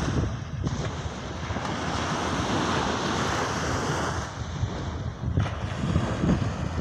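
Small waves breaking and washing onto a sandy shore, with wind buffeting the microphone in gusts.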